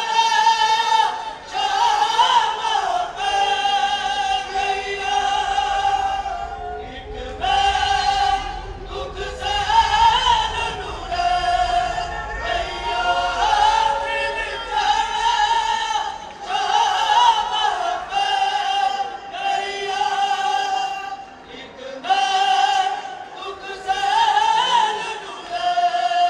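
A noha, a Muharram lament, sung by several voices in short repeated phrases with brief pauses between them.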